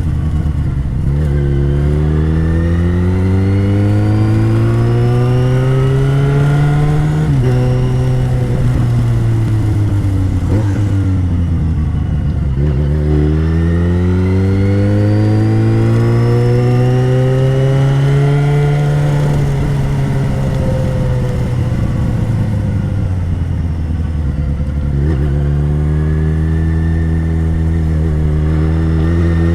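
Yamaha XJ6's 600 cc inline-four engine running under way: its pitch climbs under acceleration, drops sharply at a gear change about seven seconds in, and falls as the bike slows. It then climbs again, eases off as the bike slows a second time, and rises once more near the end.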